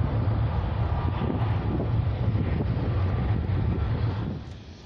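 Jet engines of a four-engined Boeing 747 freighter landing on final approach, heard as a loud, steady low rumble. The sound drops off sharply about four seconds in.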